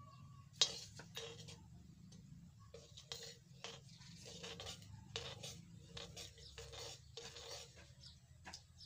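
Steel spoon scraping and knocking against a steel kadhai, about two strokes a second, while stirring spice powder into hot mustard oil; one sharper knock comes about half a second in.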